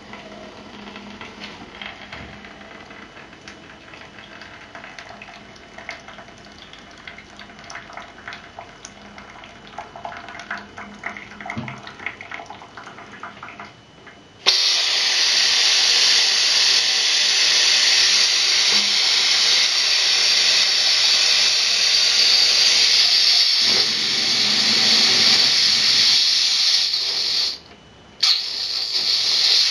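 Compressed air hissing out of an air compressor tank's open drain, pushing out condensate. The hiss starts suddenly about halfway through, runs loud and steady, and stops briefly near the end. Before it there are only faint small clicks and trickling.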